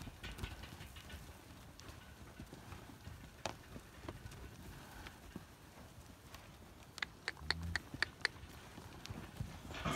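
Weaned heifer calves milling on dry dirt, their hooves shuffling and knocking, with scattered clicks and a quick run of sharp clicks about seven seconds in.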